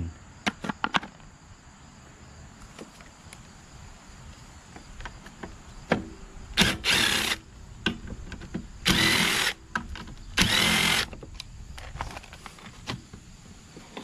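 Cordless impact driver run in three short bursts, about a second each, undoing the screws of the air cleaner housing on a Briggs & Stratton Quantum mower engine. A few light plastic clicks from handling come first.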